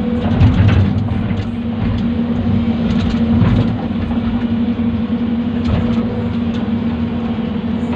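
Hyundai excavator's diesel engine running steadily under load as the bucket cuts into dirt, with low rumbling swells and occasional short knocks from the digging.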